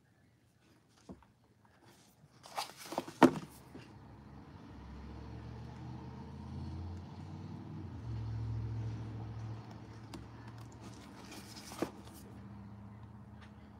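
A short run of clicks and knocks, then a low, steady motor hum with a hiss above it that begins about four seconds in and shifts in pitch a few times.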